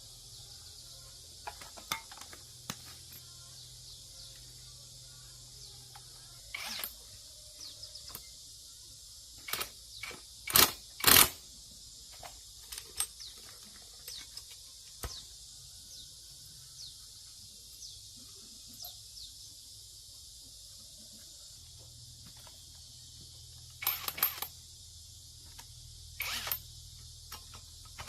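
Metal parts and hand tools clinking and knocking as machine parts are handled and fitted together: scattered sharp clicks, the loudest a pair of knocks about ten seconds in and a quick cluster near the end, over a steady high hiss.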